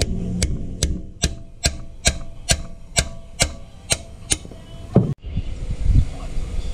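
Sharp metallic taps, about ten of them, evenly spaced a little over two a second, from a steel bar working at the drive-shaft oil seal in a Perodua Viva's transaxle; they stop about four and a half seconds in, and low handling noise follows.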